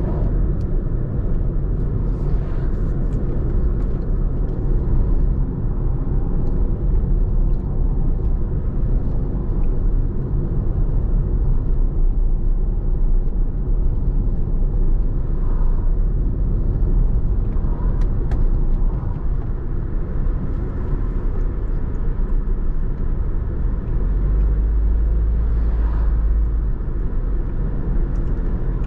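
A car driving along a road: a steady low rumble of engine and tyres on the road surface, deepening for a few seconds near the end.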